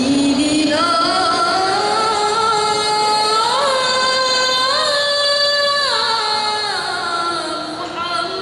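Female lead singer of a maulid group singing solo into a microphone: one long melismatic line of devotional song, the voice climbing slowly in pitch with small ornamental turns and falling away near the end. No drumming is heard under it.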